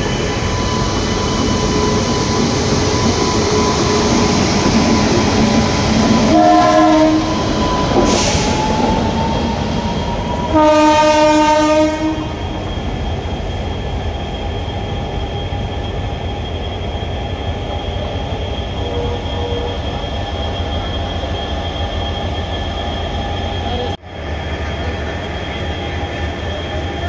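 WAG-9HC electric locomotive running slowly along the track with a steady whine, sounding its horn twice: a short blast about six and a half seconds in, then a longer, louder one about ten and a half seconds in. The sound cuts off abruptly near the end, giving way to a lower, steadier hum.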